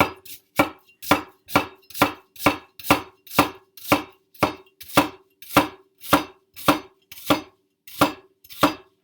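Kitchen knife chopping on a cutting board in a steady rhythm, about two strokes a second, with a faint ring hanging between the strokes.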